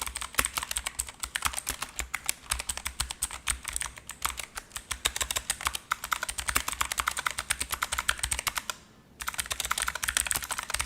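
Fast typing on an ASUS TUF K3 mechanical keyboard with blue switches: a rapid, continuous run of sharp key clicks, described as loud and satisfying, with a brief pause near the end.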